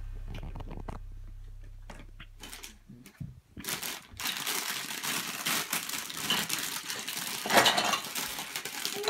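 Plastic packaging rustling and crinkling as toy parts are unpacked, with small clicks of hard plastic pieces. It starts about three and a half seconds in, after a low hum fades away, and has one louder crackle near the end.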